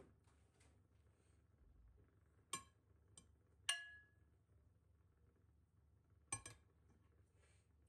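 Serving utensil clinking against a glass baking dish and a ceramic plate as food is lifted and served: a few light clinks, one just before four seconds with a short ringing tone, and a quick double clink about six and a half seconds in.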